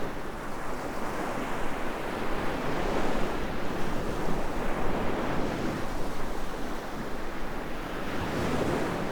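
Ocean surf washing onto a beach: a steady rush of breaking waves that swells and eases slowly.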